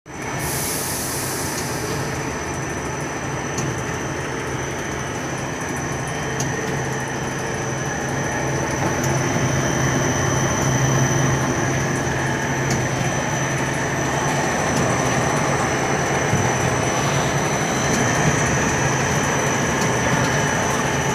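Prawn cracker production line machinery running: a steady low mechanical hum with a thin high whine above it and occasional light clicks, as the dough extruder pushes out strands of cracker dough.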